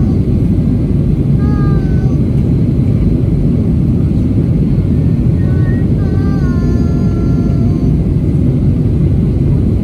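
Steady cabin rumble of a Boeing 737-800 on approach, heard from a window seat over the wing: its CFM56-7B turbofan engines and the airflow over the fuselage.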